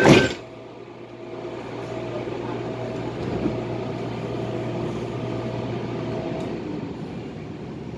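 MTR A-Train doors slam shut at the very start, the loudest sound. Then a steady low hum from the train's onboard equipment, with a higher tone that comes and goes, both stopping about six seconds in.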